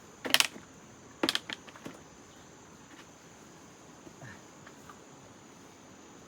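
A few sharp knocks and clicks: two loud ones about a third of a second in, then a quick run of smaller ones around a second and a half. Under them runs steady, high insect buzzing.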